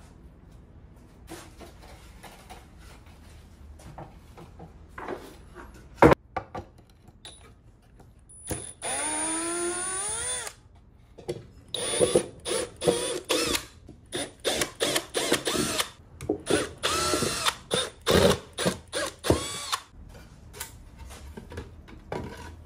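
A cordless Milwaukee Fuel drill turning screws in a wooden chair seat: one longer run with the motor pitch rising, then a string of short trigger bursts. A single sharp knock comes earlier, about six seconds in.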